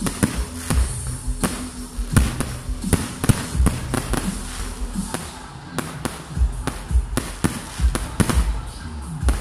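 Aerial fireworks bursting in quick succession: an uneven run of sharp bangs and crackles, several a second.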